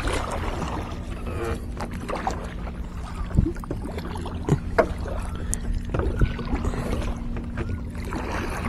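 Kayak on the river: water moving against the hull with a few hollow knocks, under a steady low hum that stops shortly before the end.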